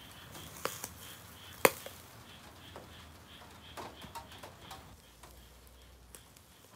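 Charcoal grilling under chicken gizzard yakitori skewers: scattered sharp pops and crackles from the meat and the coals in a shichirin. The loudest is one pop about one and a half seconds in, and a quick cluster comes around four seconds in.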